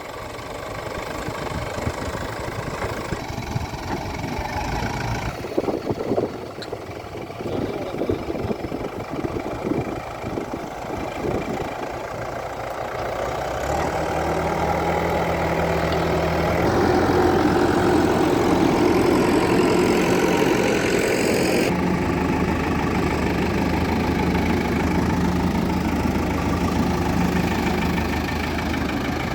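Heavy diesel machinery running. Irregular knocks and clatter sound through the first half. About halfway a steady engine tone sets in and grows louder, then holds.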